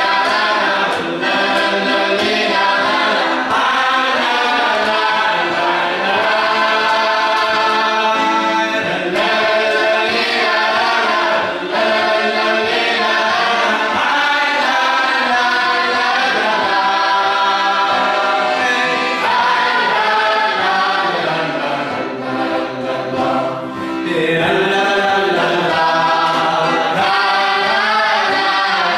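Hasidic boys' choir singing a march in unison, accompanied by an accordion. The sound goes briefly softer a little past two-thirds of the way through, then returns to full.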